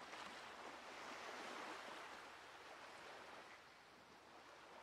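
Faint ocean surf washing onto a beach, swelling over the first couple of seconds and then slowly fading.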